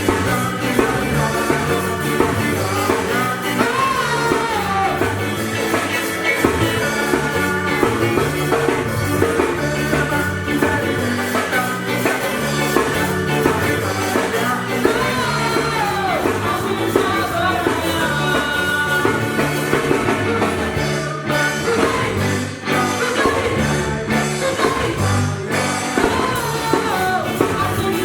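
Ska band playing a song with a singer over a steady beat.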